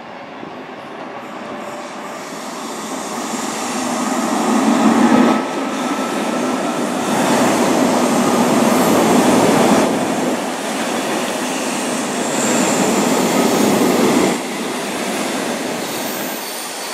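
Suburban electric train passing close by. Its wheel-and-rail noise builds as it approaches, stays loud for about ten seconds, then eases off, with a faint thin squeal of wheels on the rails.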